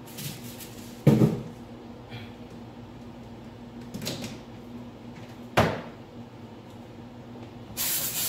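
Two loud clunks, about a second in and again about two-thirds through, with a fainter knock between them, like cupboard doors or objects being set down. A short spray hiss starts near the end. A steady low electrical hum runs underneath.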